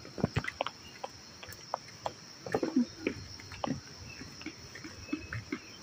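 Footsteps on stone steps, irregular soft knocks and scuffs of shoes and sandals, over a steady high drone of insects in the trees.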